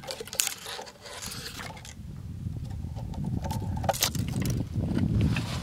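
Footsteps crunching and crackling over dry leaves and twigs while brush scrapes and rustles close by, over a low rumble, with a few sharper snaps, about half a second in and again around four and five seconds in.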